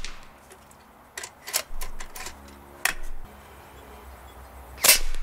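AGT Vulcan 3 .22 PCP air rifle: a few light clicks and knocks as the action is worked, then one sharp shot near the end, the loudest sound.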